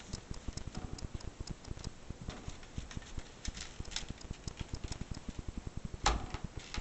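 A white PVC gate panel handled against a wooden frame, with soft plastic knocks and taps throughout. A sharper click about six seconds in as the panel is clipped into a clasp.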